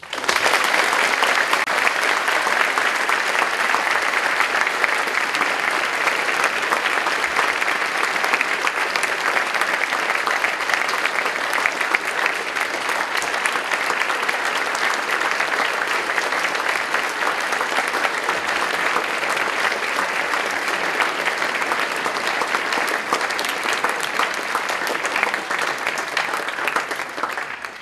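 Large audience applauding: sustained applause that breaks out all at once, holds at a steady level, and dies away near the end.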